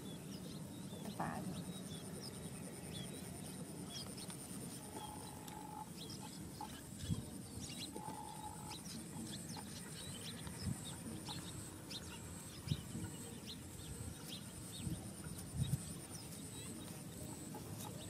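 Open-field ambience: a steady high-pitched drone with many short high chirps. Two brief mid-pitched tones come around five and eight seconds in, and a few soft thumps are scattered through.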